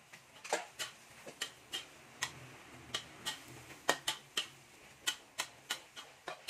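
Spatula clacking and scraping against a wok while holy basil and minced pork are stir-fried, in quick irregular clicks about two or three a second that start about half a second in.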